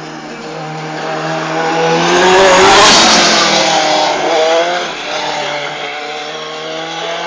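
Open-cockpit race car's engine revving hard as it drives past, loudest about three seconds in, its note rising and falling as it accelerates away.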